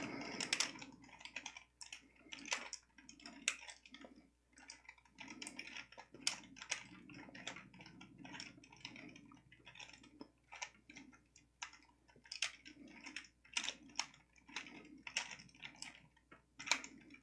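3x3 Rubik's Cube being twisted quickly by hand, its plastic layers turning with many quick, irregular clicks and rattles as the last steps of the solve are worked through.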